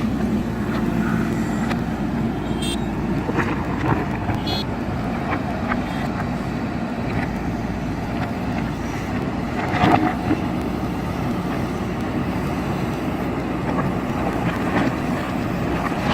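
Diesel engine of a JCB backhoe loader running steadily under work, with a few scattered knocks of the bucket and stones, the loudest about ten seconds in.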